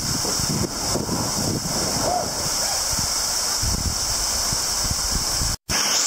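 Waterfall pouring onto the lake and onto a kayaker sitting beneath it, a steady rushing splash, with uneven low rumbling, cut off suddenly near the end.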